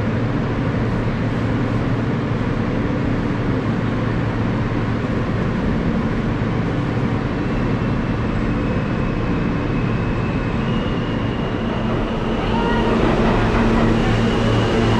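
New York City subway train running, heard from inside the car: a steady rumble with a low electric motor hum. Near the end it grows louder and faint high whining tones come in.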